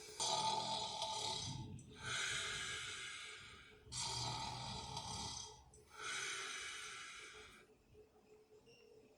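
A person snoring: two slow breaths, each a snore on the in-breath followed by a breathy out-breath, every part about two seconds long, dying away near the end.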